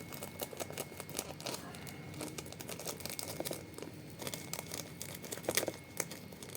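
Blind-bag packaging crinkling and crackling as it is handled and torn open by hand, a busy run of sharp crackles that is loudest about five and a half seconds in.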